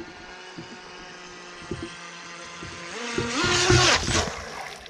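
Radio-controlled speedboat running on the lake with a steady motor whine, which rises in pitch about three seconds in as the boat speeds past close by. A loud rush of spray follows as it throws water across the camera, then the sound fades.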